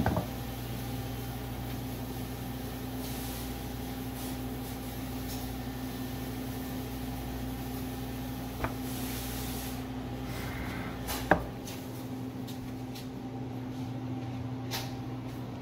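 Steady low hum with a few short, sharp knocks on wood. The first knock, right at the start, is a wooden sushi serving board set down on the countertop. The loudest comes about two-thirds of the way through.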